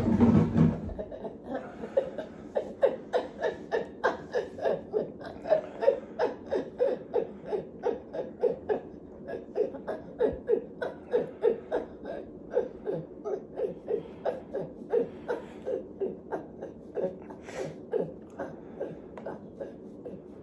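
A woman's rhythmic grunting vocal sounds during a seizure, about two or three a second in a long even run, weakening near the end.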